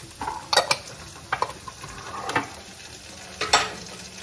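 Chopped onion and jarred garlic sizzling in butter in a frying pan while being stirred, with several sharp clicks and scrapes from the utensil against the pan.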